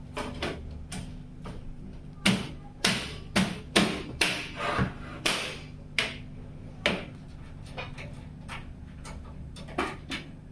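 Irregular sharp taps and knocks of PC case hardware being handled, about a dozen, clustered most densely a couple of seconds in, over a faint steady hum.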